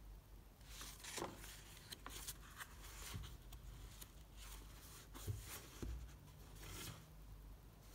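Pages of a handmade-paper sketchbook being turned by hand, a faint series of rustles and flicks. About five to six seconds in, a couple of light thumps as the book is shut and set down.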